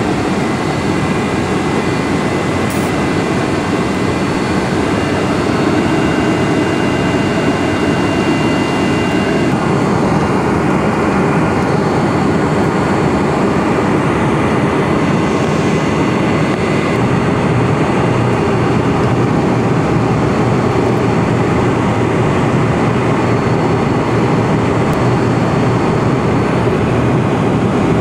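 Steady cabin noise inside a Boeing 747-400 airliner: a rushing hiss with a low hum that grows stronger a little past halfway through.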